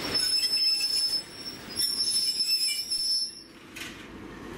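Passenger train's wheels and brakes squealing as it slows along the platform: a high, steady screech in two stretches that stops about three and a half seconds in.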